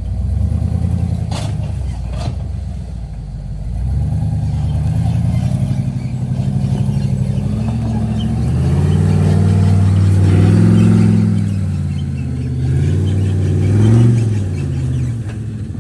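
Off-road rig's engine working under load while crawling over rocks, the revs rising and falling several times with the throttle. Two short sharp knocks sound in the first few seconds.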